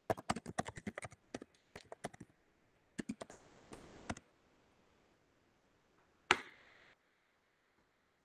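Typing on a computer keyboard: quick runs of key clicks for the first two seconds and again around three to four seconds in, then one louder click a little past six seconds.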